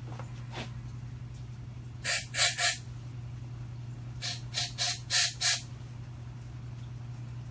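Short hissing spray blasts in two runs: three quick ones about two seconds in, then five more a couple of seconds later. A steady low hum runs underneath.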